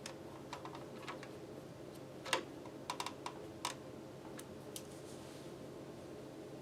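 Scattered light clicks and taps, about a dozen irregular ones over four seconds, the loudest about two seconds in and a quick cluster around three seconds, over a steady low hum.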